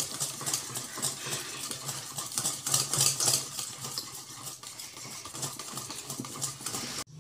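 Wire whisk beating thick lentil batter in a stainless steel bowl: quick, repeated scraping and clicking strokes of the wires against the metal. The batter is being beaten in one direction until it turns light and airy.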